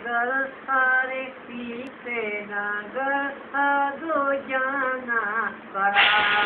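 A woman singing, in short phrases with held, wavering notes. A loud hiss of noise comes in near the end, under the singing.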